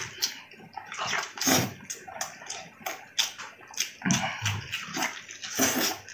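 Close-miked wet eating sounds of braised pork knuckle: chewing, slurping and lip smacks in irregular bursts as the soft, saucy skin and meat are bitten and pulled apart.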